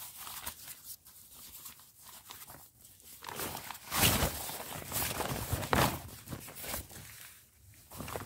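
Rustling and swishing of a camouflage-patterned fabric bag being handled, pulled and spread out on the ground, in irregular bursts that are loudest about four seconds in and again near six seconds.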